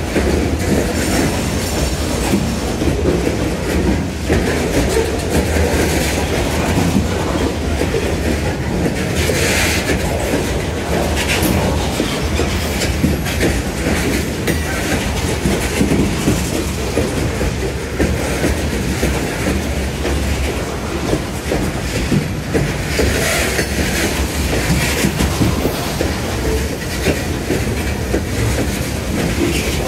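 Covered hopper cars of a freight train rolling past close by: a steady rumble with steel wheels clicking over the rail joints. Two brief higher-pitched wheel squeals come through, about a third of the way in and again near three quarters.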